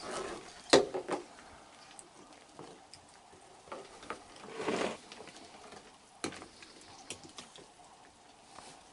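Raccoons feeding on a wooden deck: scattered small clicks and knocks from chewing and from paws and food on the boards, over a faint hiss. The sharpest knock comes about three-quarters of a second in, and there is a soft rustle around the middle.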